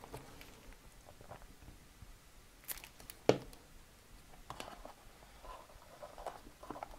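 Faint rustling of paper being handled as a die-cut paper leaf is pressed onto a card box, with a couple of light ticks about three seconds in.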